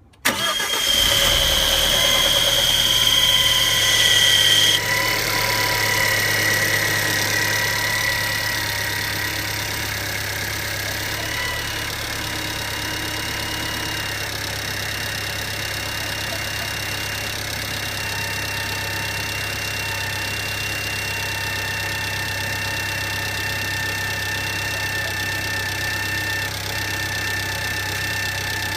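Engine started from cold, catching at once and settling to an idle, with an abnormal high-pitched whine of several thin tones over the running engine that the owner likens to the voice of Alien Baltan. The whine is strongest in the first five seconds or so, then carries on fainter over the steady idle.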